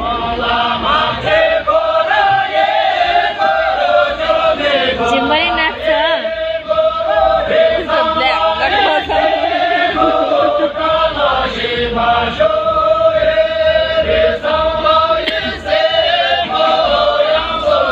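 A group of voices singing a Tamang folk song together in unison, a chant-like melody with long held notes.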